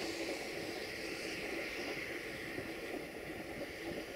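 Passenger train rolling away along the track, its noise of wheels on rails slowly fading into a steady hiss.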